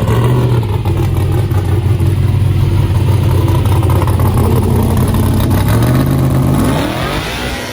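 A car engine running loudly with a steady low note, which bends in pitch and fades near the end as the car moves off.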